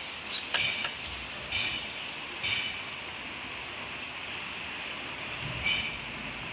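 Hand tools clinking sharply against the alternator and its mounting bracket on a loader's diesel engine, about five times, while the alternator drive belt is being tensioned. A steady hiss runs underneath.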